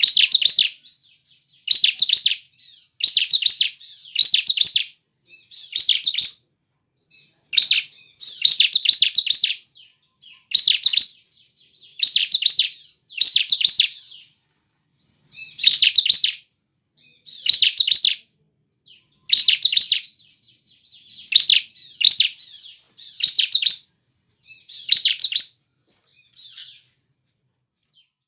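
Bar-winged prinia (ciblek) singing: short, loud bursts of rapid high trilled notes, repeated every second or two, some trailing off into softer chattering.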